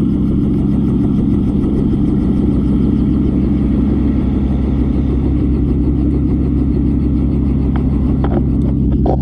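An engine running steadily at an even speed, a loud constant hum with no revving. A few faint clicks come near the end.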